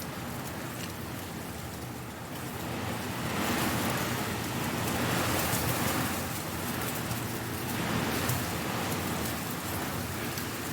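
Strong wind blowing dry leaves, a steady rushing hiss with fine crackling, swelling in gusts about three seconds in and again near eight seconds.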